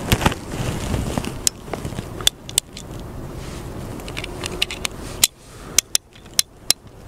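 Single-action .45 Colt revolver being loaded with blank rounds: a string of sharp, irregular metallic clicks as cartridges are seated and the cylinder is turned, several in quick succession near the end. Rustling handling noise in the first second or so.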